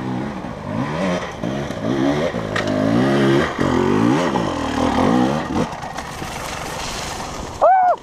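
300 cc two-stroke enduro dirt bike revving hard on a loose hill climb, the revs rising and falling again and again as the throttle is worked. The engine drops away about six seconds in, and a short loud shout comes near the end.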